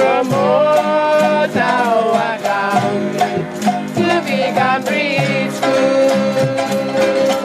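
Music: singing over strummed string instruments with a steady beat.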